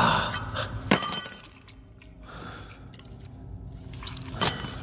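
Fight sound effects from a film's knife fight: sharp hits with a bright metallic ring. The loudest comes about a second in, another near the end, with a quieter stretch between.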